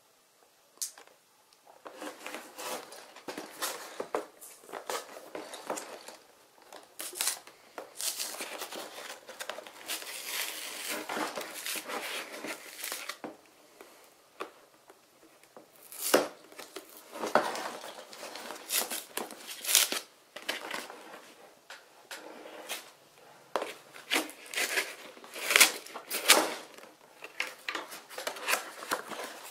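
Cardboard box being handled and pried open by hand: irregular rustling and scraping of the cardboard starting about two seconds in, with sharp rips and cracks, the loudest near the end, as the glued flap tears free.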